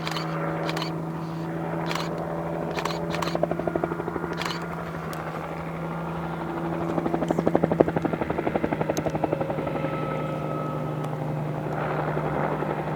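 Helicopter running overhead: a steady engine and rotor hum with a rapid blade chop that swells twice, about four and eight seconds in, as it drives wild horses. A few sharp clicks in the first few seconds.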